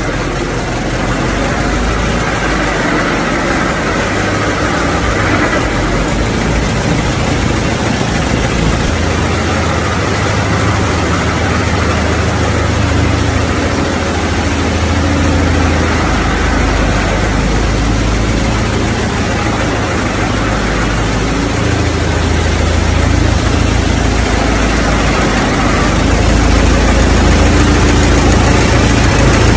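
Old car's engine running at idle, a steady low rumble that swells a little near the end.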